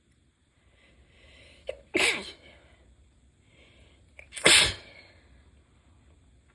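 A person with a very stuffy head cold sneezing twice, about two and a half seconds apart, each sneeze preceded by a breathy intake of breath and falling in pitch. The sneezes are high-pitched and a little squeaky because the nose is so blocked.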